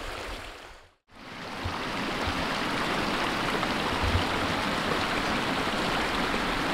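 River water running: a steady rush. It cuts out briefly about a second in, then fades back in and holds steady.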